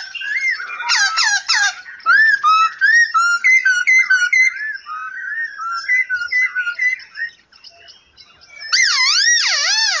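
Songbirds singing: a run of clear, gliding whistled notes and quick trills, a short lull near the end, then loud wavy warbling whistles.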